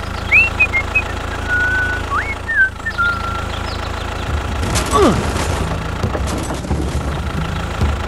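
Tractor engine running at a steady low rumble, growing louder and rougher from about halfway through. Short high whistled chirps and glides sound over it in the first half, and one whistle falls steeply about five seconds in.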